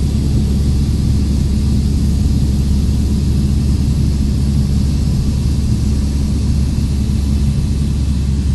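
Cessna 172's piston engine and propeller droning steadily, heard inside the cabin.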